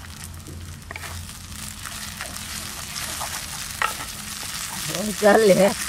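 Spatula stirring and scraping a ground kumal lota paste with fried onions in hot oil in a wok, with a light sizzle and scattered scrapes. Near the end comes a brief wavering vocal sound, louder than the frying.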